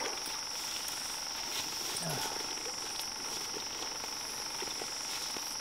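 Steady high-pitched chorus of night insects, with faint scattered ticks and rustles close by.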